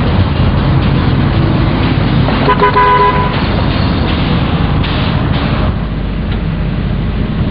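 Car driving with a steady road and engine rumble, and a short car horn toot about two and a half seconds in.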